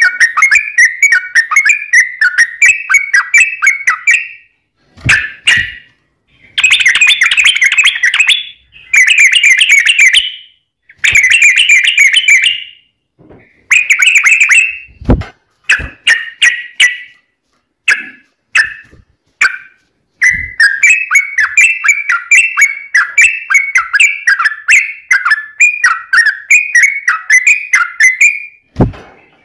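Yellow-vented bulbul singing loud, rapid runs of repeated chirpy notes, several runs broken by short pauses. A few brief soft knocks come between runs.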